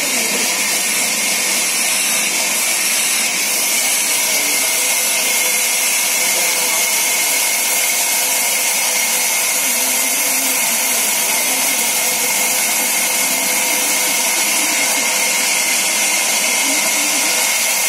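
Sawmill's vertical band saw running and ripping a wooden plank fed through by hand: a loud, steady rushing noise with a high whine held on top.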